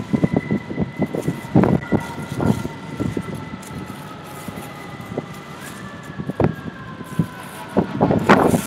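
Wind buffeting the microphone in irregular gusts, strongest near the start and again near the end. Behind it, several steady high tones drift slowly down in pitch and jump up once past the middle.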